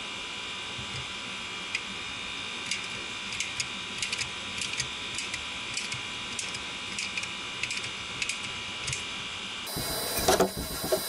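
Scattered light clicks and crackles from a tube of urethane window-weld adhesive being squeezed by hand into a rubber engine mount. Near the end the sound changes abruptly and a couple of sharp knocks follow.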